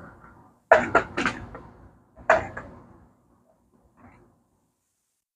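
Sharp knocks and clatters of metal workshop hardware on a workbench. Three come in quick succession about a second in, another about a second later, and a faint one near the end.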